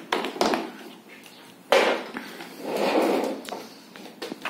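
Knocks and clicks from the plastic body and parts of a Metabo ASA 25 L vacuum cleaner being handled, with a sharp knock a little under two seconds in and rustling between the knocks; the vacuum is not running.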